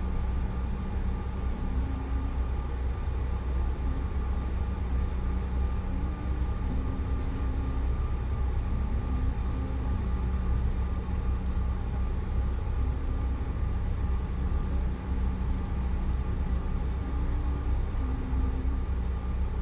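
Steady cabin noise inside a Bombardier CRJ900 jet: a deep rumble with steady whine tones from its twin rear-mounted turbofan engines, holding level with no rise or fall.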